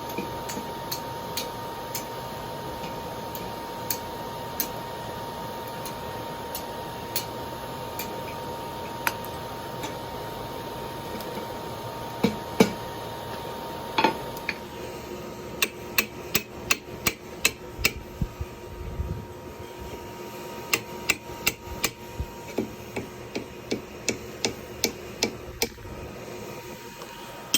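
Hand hammer striking hot steel on an anvil, drawing out a taper: quick runs of blows at about two to three a second, starting about halfway through. Before that, a steady hum with a few scattered light taps and knocks.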